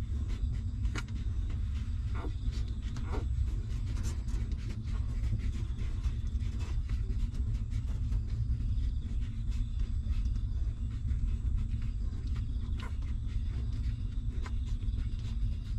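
Newborn puppies suckling at their mother, with scattered faint wet clicks and smacks over a steady low rumble.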